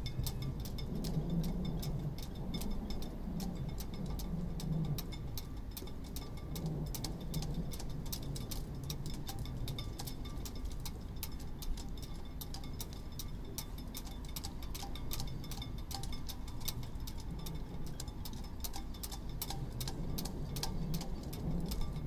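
Sailboat rigging lines slapping and clinking against the masts in a mild wind: quick, irregular metallic ticks, several a second, over a steady low wind rumble.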